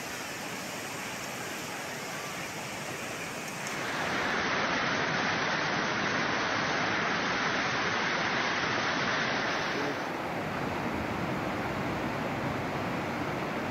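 Muddy flash floodwater rushing through a street, a steady rushing noise that gets louder about four seconds in and drops back about ten seconds in.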